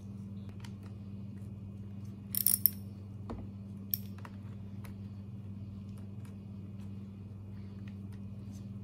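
Metal hand tools clinking: a small ratchet and socket extension handled against the chainsaw, giving a quick run of ringing clinks a little over two seconds in and one more click about a second later, over a steady low hum.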